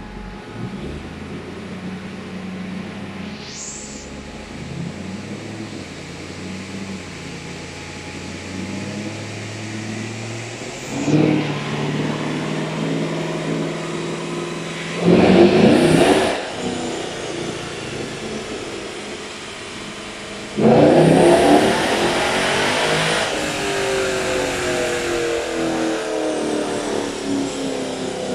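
C5 Chevrolet Corvette's V8 idling, then revved. There are short blips about 11 and 15 seconds in and a longer, louder burst near 21 seconds, after which the revs fall away slowly over several seconds.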